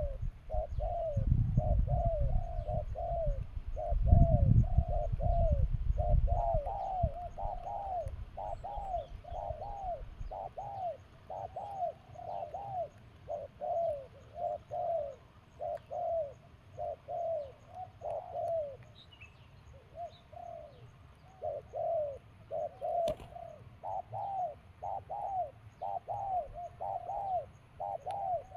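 A low, hooting bird-lure call: a short arched note repeated steadily about one and a half times a second. A low rumble of handling or wind runs under it for the first ten seconds or so.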